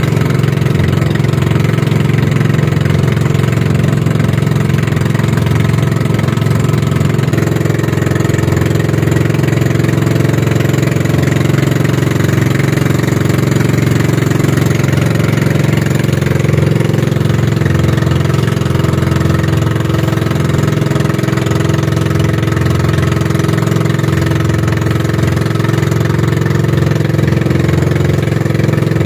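Engine of a wooden outrigger fishing boat (bangka) running steadily under way, an even drone that holds without change, with spray and water noise mixed in.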